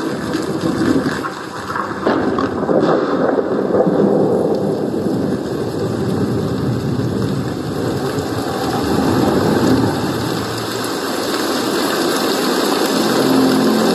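Portable Bluetooth speaker playing a thunderstorm-and-rain sound track loudly: a dense, rumbling rush with no beat. Pitched notes of music begin just before the end.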